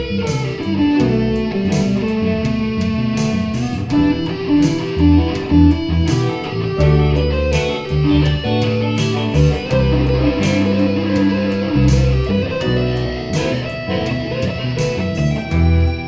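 Background music with electric guitar over bass and a steady beat.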